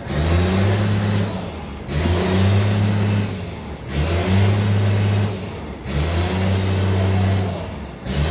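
An engine revving up, holding and dropping back in a regular cycle, four times, about every two seconds.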